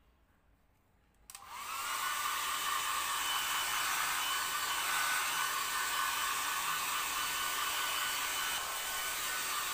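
Hand-held hair dryer switched on about a second in, its motor whining up in pitch as it comes to speed, then blowing steadily.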